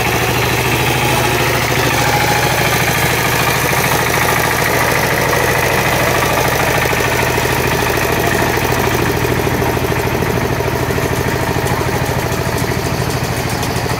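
Power tiller's single-cylinder diesel engine running steadily, a constant low hum with a dense mechanical clatter.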